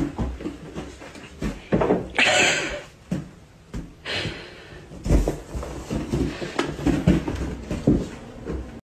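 Irregular thumps and scuffling of a cat dashing and leaping about a carpeted hallway, bumping the wall. There are two short noisy rushes about two and four seconds in.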